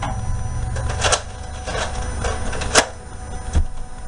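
Toy foam-dart blasters being handled and fired: a run of plastic clicks and clacks, with sharp snaps about a second in and again near three seconds in.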